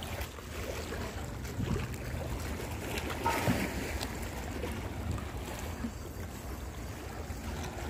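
Wind buffeting the microphone, a steady low rumble, over small waves lapping against the rocks of a seawall.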